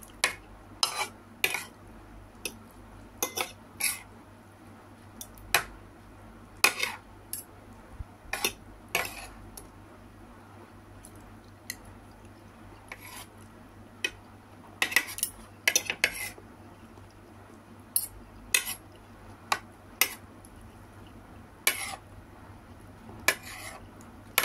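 Stainless-steel spoon and fork clinking and scraping against a plate, sharp irregular clicks every second or so, some in quick runs of two or three.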